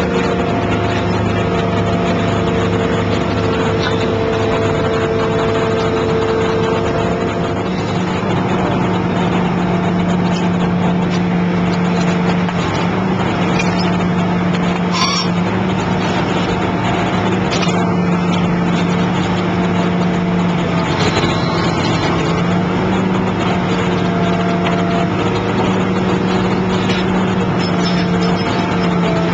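Excavator engine and hydraulics running steadily while working an ACE PC 525 hydraulic pile cutter on a concrete pile, a constant hum with a held whine over it. A couple of sharp knocks come about halfway through and again a little later.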